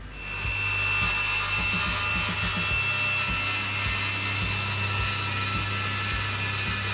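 Table saw blade cutting into a turning wooden blank held in a homemade table-saw lathe jig, shaving it down into a tapered dowel. A steady machine whine with the rasp of the cut, coming up within the first second, with uneven low knocks from the turning blank.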